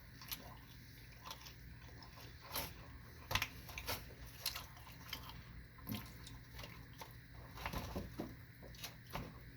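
A person chewing a mouthful of sushi close to the microphone, with irregular wet smacks and small clicks.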